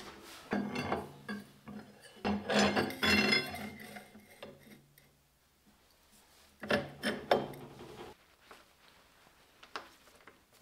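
Metal parts of a Weiler LZD 220 lathe scraping and clattering as they are handled and slid, in three bursts, the loudest about two to three and a half seconds in.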